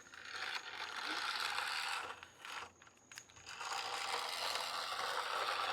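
Remote-control toy fire truck's small electric drive motor and plastic gears whirring in two runs of about two seconds each, with a short pause between them as the truck is driven.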